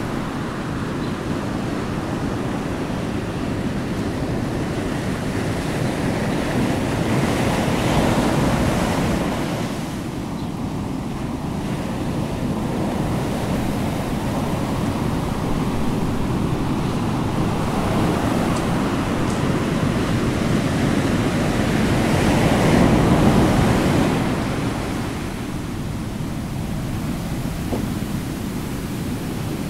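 Ocean surf: a steady rushing wash of waves that swells louder twice for a few seconds.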